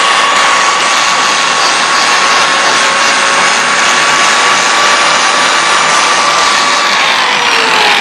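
Forge running: a loud, steady rush of air with a steady whine over it, the whine starting to drop in pitch near the end.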